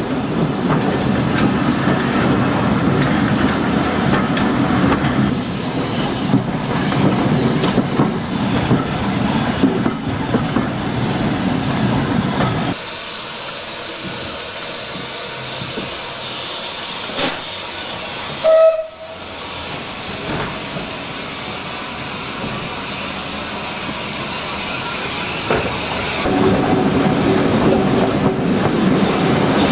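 Steam train on a heritage line: the train running with steam hiss and rail noise, then a quieter stretch stopped at a halt, broken about halfway through by one brief steam whistle blast, and the train running loudly again near the end.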